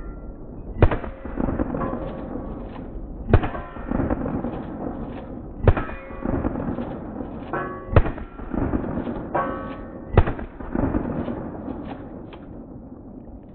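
Five shots from a Mossberg 590 pump-action .410 shotgun, about two and a half seconds apart, each sharp report followed by a rolling rumble.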